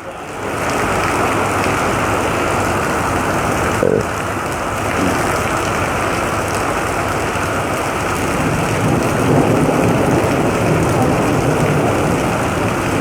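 Torrential rain pouring down steadily in a heavy downpour, with one short knock about four seconds in.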